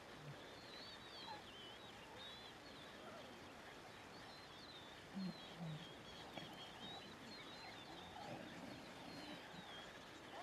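Faint outdoor ambience of small birds chirping steadily, with a few short low grunts from lions, the loudest pair about five seconds in.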